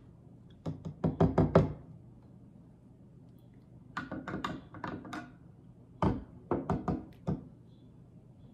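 A metal spoon stirring food colouring into water in cups, clinking against the sides in three quick runs of strikes: about a second in, about four seconds in, and again around six to seven seconds in.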